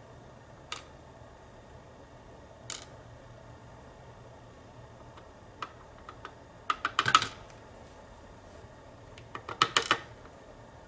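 Sharp, light clicks and taps of small hard parts being handled on a work surface: single clicks at first, then two short flurries of rapid clicking about seven and ten seconds in.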